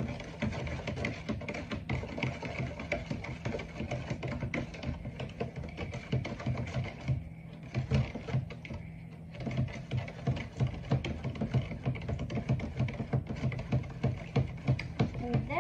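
A spoon stirring tamarind pulp and sugar in a plastic bowl: quick, rapid clicking and scraping strokes against the bowl, with a short lull around the middle, then steadier, regular strokes of a few a second.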